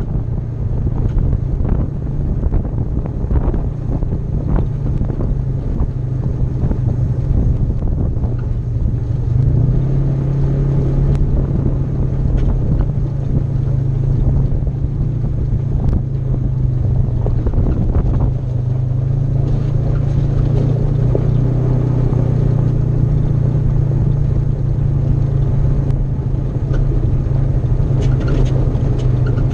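Polaris RZR side-by-side's engine droning steadily at cruising speed on a gravel road, its pitch stepping up slightly about a third of the way in and again about two-thirds in, with gravel ticking and rattling under the tyres.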